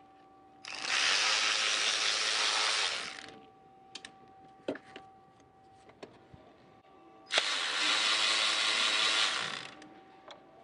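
Cordless ratchet motor running in two spells of about two and a half seconds each, spinning out engine-bay fasteners, with small clicks and knocks of tools and parts between them.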